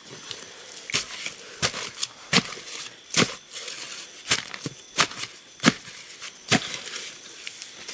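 Sharp chopping knocks, about nine of them, coming irregularly about once a second, as soil and roots at an animal's burrow are chopped and dug out.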